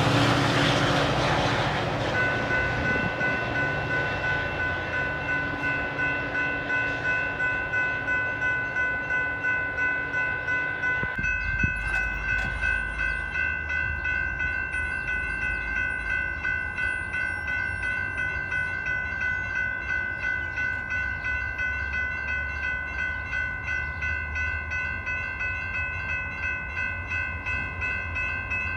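Railroad grade-crossing warning bells ringing in an even, steady rhythm of about two strokes a second. Under the first couple of seconds, the noise of a departing Metra commuter train fades away, and later a faint low rumble of an approaching train sits beneath the bells.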